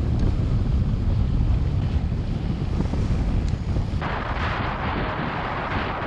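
Wind buffeting the microphone of a camera on a moving bicycle: a heavy, steady low rumble. About four seconds in, a brighter hiss comes in on top of it.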